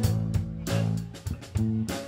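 Live band playing, with electric bass and electric guitar to the fore.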